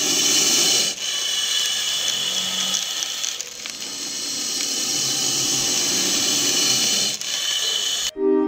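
A harsh, steady mechanical whirring noise that cuts off abruptly near the end, where music starts.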